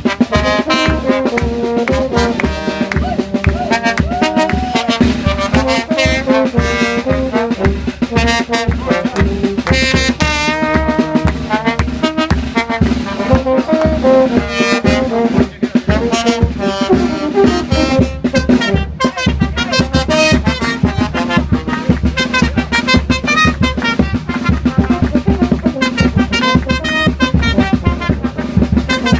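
Brass band music: trumpets and trombones playing over a steady drum beat.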